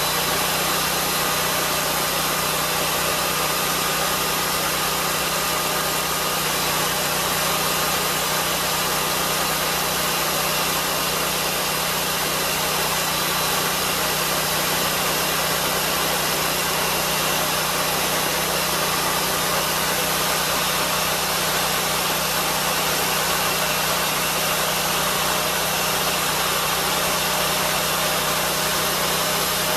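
Lucas swingblade sawmill running steadily, its engine-driven circular blade being pushed through the log on a slabbing cut.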